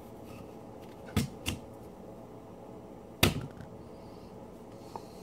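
Chef's knife cutting through a raw yam and knocking against a wooden cutting board: two knocks about a second in, then a louder knock a little after three seconds, and a faint click near the end.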